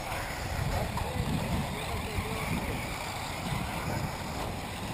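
Wind buffeting the microphone, with the faint whine of 1/8-scale electric RC off-road buggies rising and falling as they run on the track, and distant voices.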